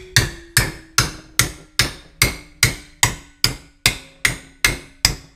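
Hand hammer striking a small metal patch piece clamped in a bench vise, bending it over the back of a screwdriver shank to give it a radius. The blows come at a steady pace of about two and a half a second, each ringing briefly.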